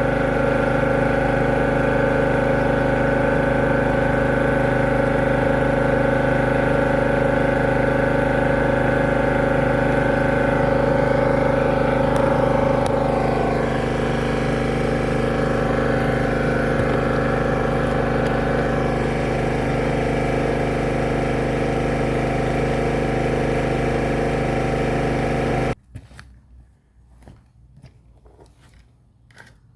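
High-pressure drain jetter's motor and pump running steadily while jetting a blocked drain, with a slight drop in level about halfway through. It cuts off suddenly near the end, leaving a few faint clicks.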